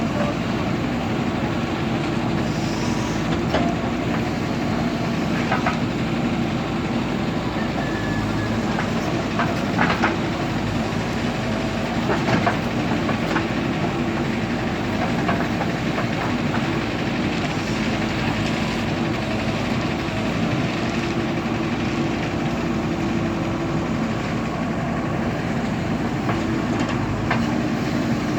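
Diesel engine of a JCB digger running steadily, with scattered clanks and knocks, the sharpest around ten and twelve seconds in.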